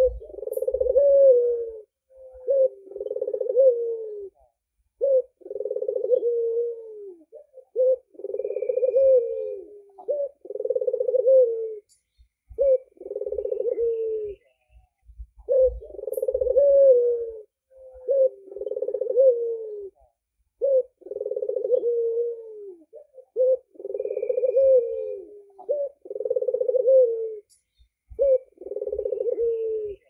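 White (albino) Barbary dove, the Indonesian puter, cooing: long rolling coo phrases of a second or two each, one after another with short pauses, many ending in a falling note.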